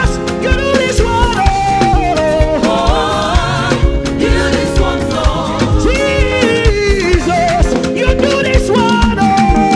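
Live gospel music: a woman singing a gliding, ornamented lead line over a band with sustained keyboard chords and a steady drum beat.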